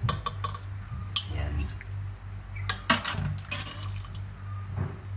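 A metal ladle clinking and scraping against an aluminium pot as it scoops parboiled stingray pieces out of the broth, with liquid sloshing and dripping. There are several sharp knocks, the loudest about three seconds in, over a steady low hum.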